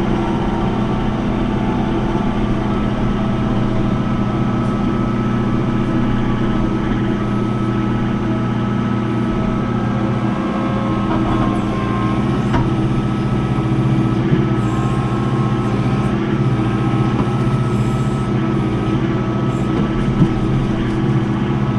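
John Deere 4066 compact tractor's diesel engine running steadily under load while its front loader works a bucket of dirt, with a sharp click near the end.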